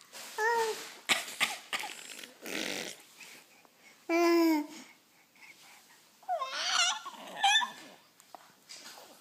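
Young child making playful vocal noises: short breathy, cough-like bursts (a put-on fake cough), a loud held squeal about four seconds in, then babbling and laughing.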